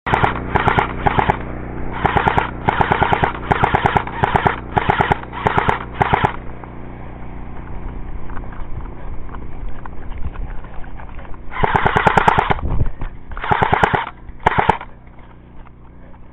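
Airsoft electric gun firing full-auto bursts of rapid shots: a string of about nine short bursts, a pause, then three more bursts near the end.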